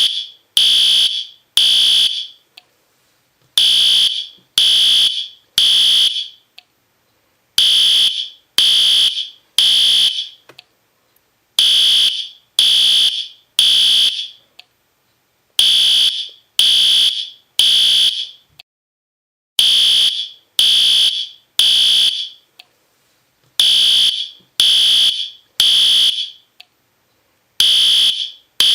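System Sensor P2R fire alarm horn sounding in the temporal-three pattern: three loud, high-pitched blasts of about half a second each, then a pause, repeating about every four seconds. This is the standard fire evacuation signal.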